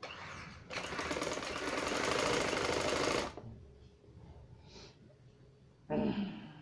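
Domestic sewing machine running fast for about two and a half seconds, stitching through the fabric with a rapid even ticking, then stopping. A short, louder sound follows near the end.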